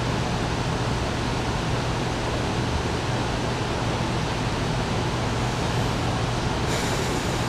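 Steady rushing ambience of an underground light-rail station, ventilation-like noise with a low steady hum. A faint higher hiss joins near the end.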